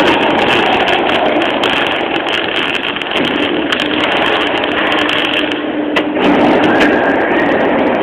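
MAG welding arc on thin 1 mm sheet steel, crackling and sizzling steadily, with a brief dip about three seconds in.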